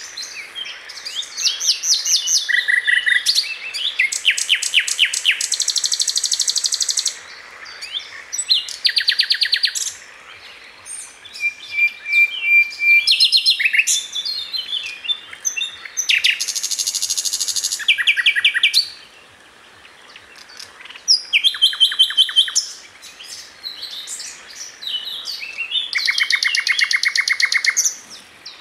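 Songbird singing: bouts of rapid trills and varied chirping phrases, each lasting one to three seconds, with short pauses between them.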